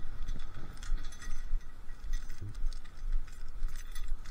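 Keys jangling and small metal parts clinking in irregular bursts as someone fiddles with an awkward lock.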